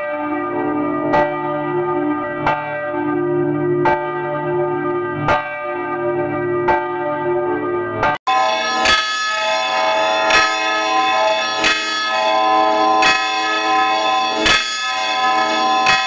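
A swinging church bell struck by its clapper about every one and a half seconds, each stroke ringing on into the next. Just after the middle the sound breaks off abruptly and resumes with a brighter, higher-pitched ring at the same steady pace.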